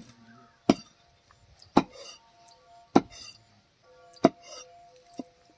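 Large butcher's knife chopping goat liver on a wooden chopping block: about six sharp chops a little over a second apart, the last one lighter.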